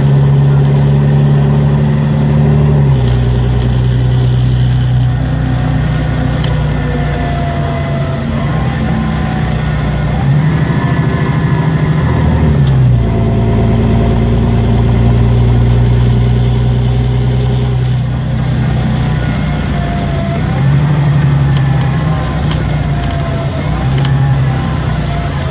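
Volvo 7700A articulated bus engine making the strange droning noise typical of these buses. A steady low hum steps up and down in pitch and strength every few seconds, wavers briefly about twelve seconds in, and faint whines glide up and down above it.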